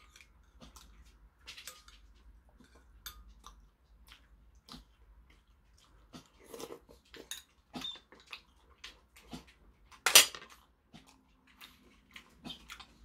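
Metal spoon clinking against ceramic bowls during eating, in scattered light taps, with quiet chewing between. One sharp, ringing clink about ten seconds in is the loudest sound.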